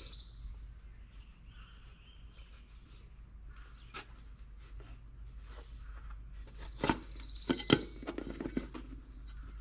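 Scattered clicks and knocks of hands handling a small wheelbarrow wheel's tire and tube, the loudest few coming in a quick cluster about three-quarters of the way through, over a steady thin high tone.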